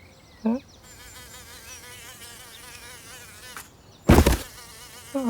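Cartoon insect buzzing, a wavering buzz that runs for about three seconds, as of a ladybird in flight; a short cat vocal sound comes just before it, and a loud thump follows about four seconds in.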